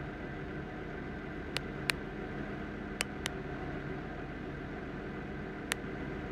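Steady drone of a Case IH CVX tractor and a forage harvester running in the field, with five sharp clicks scattered through it.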